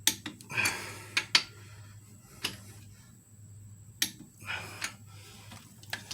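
Torque wrench and socket working cylinder head bolts: a handful of separate sharp metallic clicks spread over the seconds, with two short scraping sounds between them.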